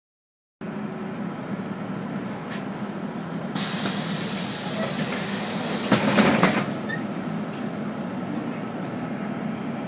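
City bus engine running with a steady low rumble, after a brief dropout to silence at the start. About three and a half seconds in, a loud hiss of compressed air from the bus's pneumatic system lasts about three seconds, with a few clunks near its end.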